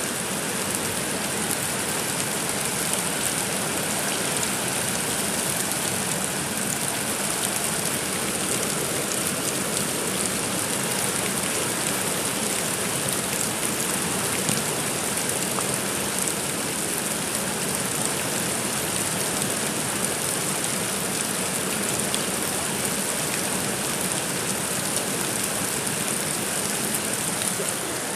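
Steady rain falling: an even, unbroken hiss with fine ticks of individual drops.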